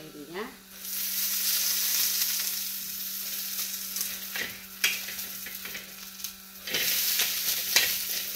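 Food sizzling in oil in a shallow frying pan while a spatula stirs and presses it, with a few sharp spatula knocks against the pan. The sizzle swells about a second in and again near the end.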